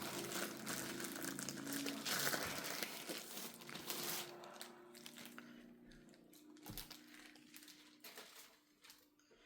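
Plastic protective sleeve around a rolled diamond painting canvas crinkling as it is handled and opened. The rustling is busy in the first half and fades after about five seconds.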